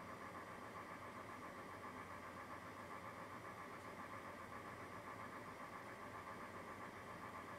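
A steady, low hum of a running motor or machine, unchanging throughout.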